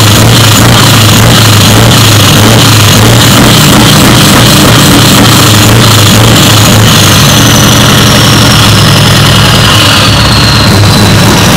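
Scania V8 diesel engine running steadily, heard right at its side exhaust pipe and very loud. A high whine slides down in pitch over the last few seconds.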